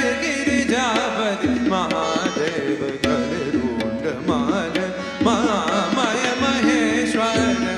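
Indian classical dance music: a gliding, ornamented melody over a steady drone, with drum strokes.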